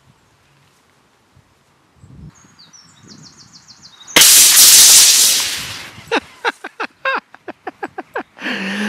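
An air rifle shot bursts a pressurised can of expanding foam: a sudden loud hiss of foam and propellant spraying out, dying away over about two seconds. A quick run of short sharp sounds follows.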